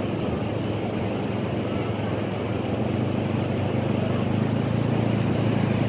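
A motor engine running steadily with a low hum, growing slightly louder about four seconds in, over the wash of breaking surf and the chatter of a crowd.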